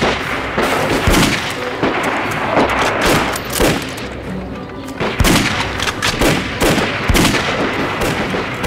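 Rifle gunfire: a loud volley at the start, then irregular shots every half second to a second and a half, over background music.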